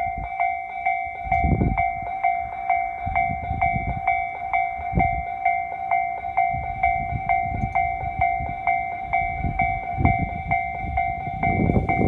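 Japanese railway level-crossing warning bell ringing, a two-tone electronic ding repeating at an even rapid rate, with low rumbling swells underneath; the crossing is closed for an approaching train.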